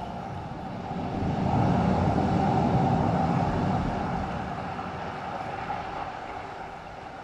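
Rushing noise in the show's soundtrack that swells up over the first two seconds, then slowly fades away.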